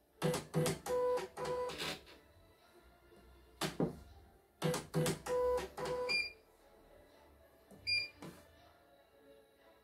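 CNY computerised embroidery machine beeping at button presses, with two runs of a couple of seconds each of quick, evenly paced buzzing strokes from its motors as the mechanism moves.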